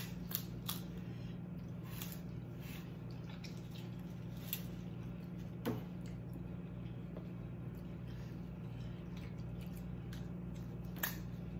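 Cooked shrimp and snow crab shells being cracked and peeled by hand, giving wet squishy handling sounds and scattered sharp snaps, several in the first few seconds and sparser later, over a steady low hum.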